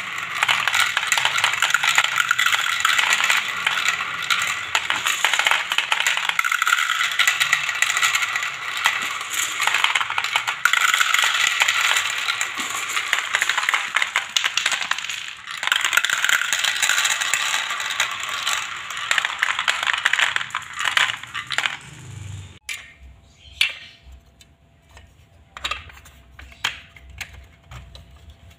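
Plastic balls rolling round a plastic spiral funnel and dropping into a plastic toy bin: a dense, continuous clatter. About 22 seconds in it stops abruptly, followed by sparse clicks of plastic marble-run pieces being handled.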